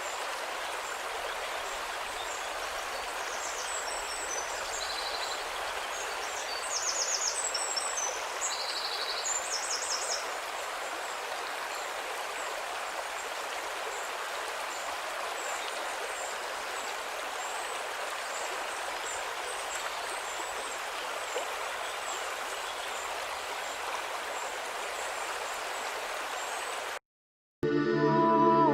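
River water rushing steadily, with short high chirping calls over it, busiest between about 4 and 10 seconds in. Near the end the water cuts off to a moment of silence and soft ambient music begins.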